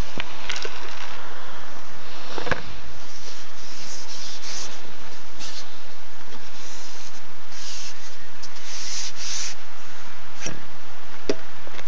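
Steady rustling, rubbing noise with a few sharp clicks as an angler handles a fishing pole and pushes it out over the water.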